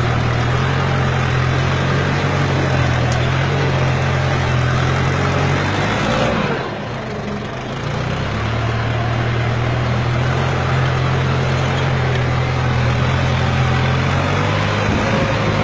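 Ford farm tractor engine running steadily under load while pulling a plough through the soil. About six seconds in its note dips and wavers for a second or two, then settles back.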